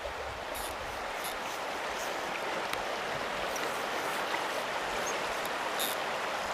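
Steady rush of a flowing trout stream, with a few faint brief ticks on top.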